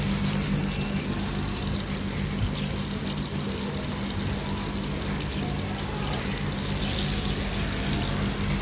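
Tap water running steadily into a sink, with a steady low hum underneath.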